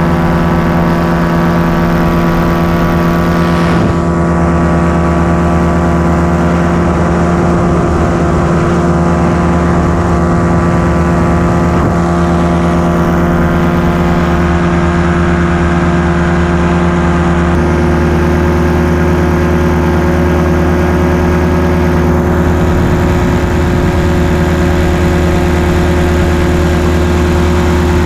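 Paramotor engine and propeller running steadily in flight, a constant droning note that changes slightly about two-thirds of the way through.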